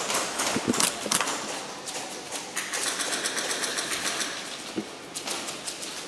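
Airsoft electric guns firing on full auto in several bursts of rapid clicking shots.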